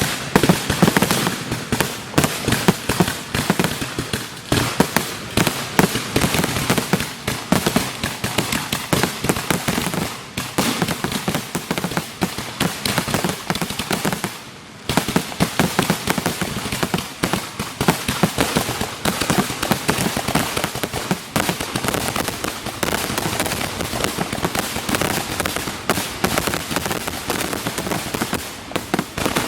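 Fireworks going off in a dense barrage: rapid, overlapping bangs and crackle of shells launching and bursting, with a brief let-up about halfway through.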